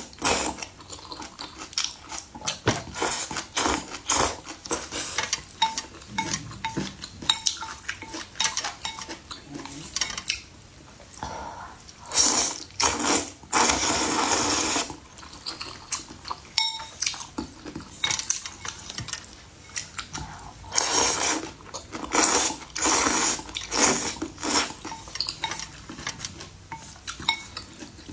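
Cutlery clinking and knocking against bowls and dishes in many quick, irregular taps. Several longer noisy stretches of a second or more come in between, the longest about twelve seconds in and again near twenty-one seconds.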